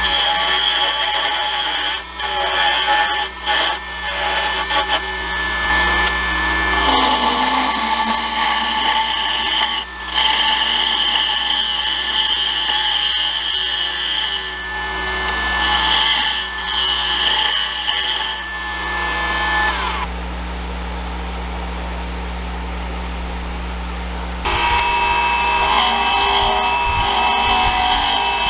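Wood lathe running with a carbide turning tool cutting a long aromatic cedar spindle: a scraping cut over a steady motor hum, broken by several short pauses. About two-thirds of the way through, the cutting stops and a high tone slides down, leaving a quieter steady run; near the end the loud cutting starts again.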